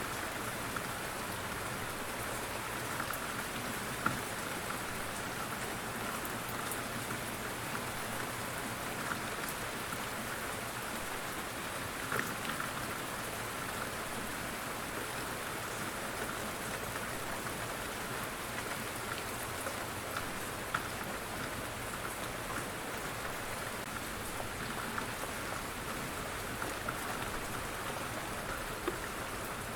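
Steady rain falling, an even patter with scattered louder individual drop hits.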